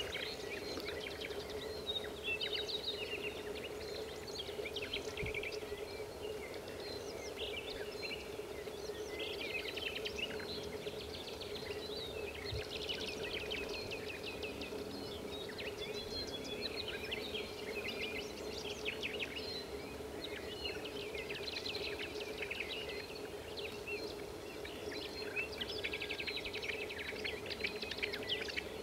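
Several birds calling throughout, a busy mix of chirps and rapid runs of repeated notes, over a steady low hum.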